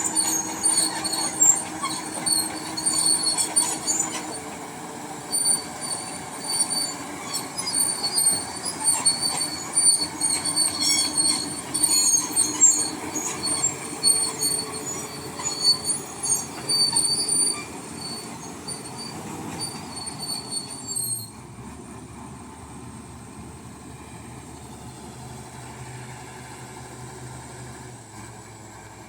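Bulldozer's steel crawler tracks squealing and clanking as the machine moves, over its running diesel engine. A little over two-thirds of the way through, the squeals and clanks stop and only the engine is left, running steadily and more quietly, idling.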